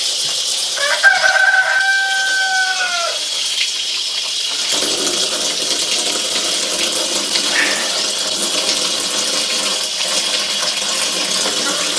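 Tap water running steadily into a steel sink as a chicken carcass is rinsed under it; the water takes on a fuller, lower sound about five seconds in. About a second in, a rooster crows once, a single long held call that drops at the end.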